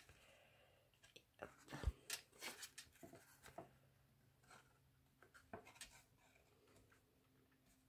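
Faint, scattered rustles and light taps of stiff white card being handled and fitted together while a paper drawer is assembled.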